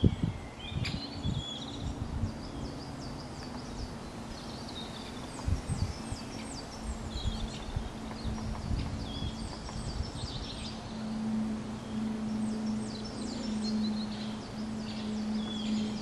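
Several small songbirds in woodland call and sing with short chirps and quick down-slurred notes all through. A few low thumps come near the start and about five seconds in, and a low steady hum grows louder in the second half.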